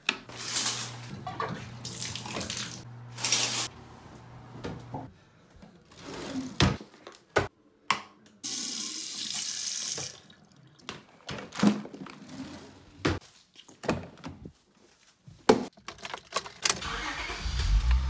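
A run of household sounds: a wall light switch clicks on, then assorted clicks and knocks, and a bathroom faucet running into a sink for a couple of seconds. Near the end a car engine starts with a low rumble.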